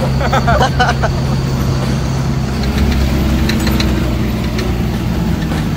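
Old off-road jeep's engine running at steady, even revs while the jeep drives slowly along a dirt track. A short burst of voices comes in the first second.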